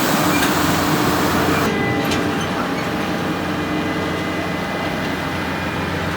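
Skid steer's diesel engine running steadily under work, with the higher hiss easing about a second and a half in.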